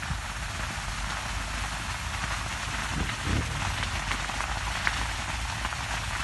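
Burning sugarcane field crackling, a dense steady hiss of many small pops that sounds like rain, with a low rumble of wind on the microphone.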